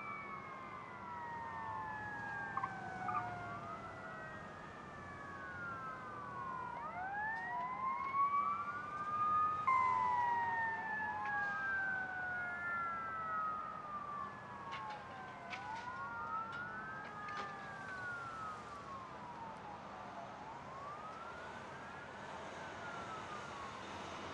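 Several emergency-vehicle sirens wailing at once, their slow rising and falling sweeps overlapping, with a few faint sharp clicks in the second half.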